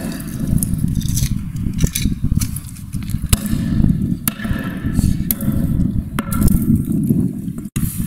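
Mallet blows smashing metal-framed eyeglasses on a concrete floor: a series of sharp knocks and clicks as the lenses crack and the frame breaks. A steady low rumble runs underneath the knocks.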